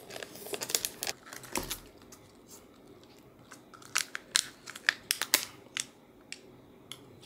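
Thin plastic food packaging crackling and clicking as a clear plastic cup of vegetable sticks is opened and the lid of a small plastic dip cup inside it is peeled off. Irregular sharp clicks and crinkles come in two bunches, with a quieter gap of about two seconds between.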